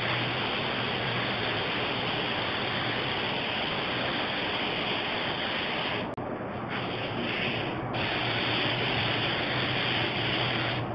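Gravity-feed air spray gun hissing steadily as it sprays finish. About six seconds in, the hiss briefly falters and comes in short spurts, then runs steady again.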